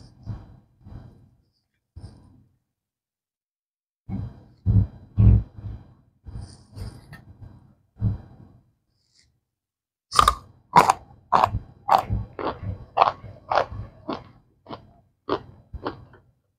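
Cornstarch chunks being bitten and chewed close to the microphone. There are softer irregular chews at first, then from about ten seconds in a steady run of sharp crunches, about two a second.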